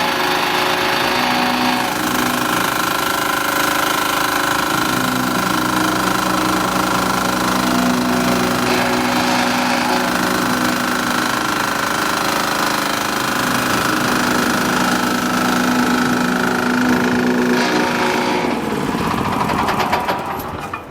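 FVR600D walk-behind double-drum vibratory roller running, its small engine and vibrating drums making a steady, loud rattling drone. Near the end the steady sound breaks up and dies away.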